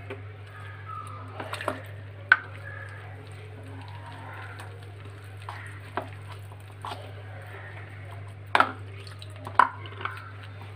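A metal spoon stirring gram flour and water into a batter in a bowl: soft wet squishing with scattered clicks of the spoon against the bowl, the sharpest about two, eight and a half and nine and a half seconds in, over a steady low hum.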